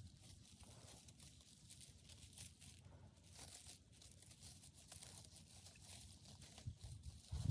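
Faint outdoor quiet with soft rustling of dry fallen leaves and a few low thumps near the end.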